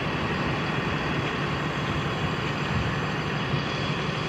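ALS intercity bus running steadily, its engine and road noise an even rumble with no horn sounding.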